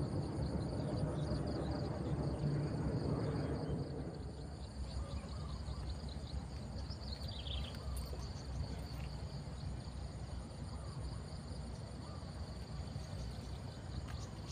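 Insects trilling steadily in the waterside grass, high and pulsing, over a low rumble that is louder in the first few seconds. A short falling chirp comes about seven seconds in.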